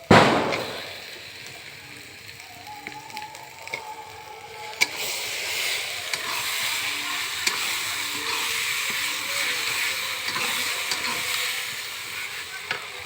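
Food frying in hot oil in a pan: a loud sizzle flares up at once and dies down over about a second. About five seconds in, a sharp click is followed by a steady crackling sizzle that carries on and eases near the end.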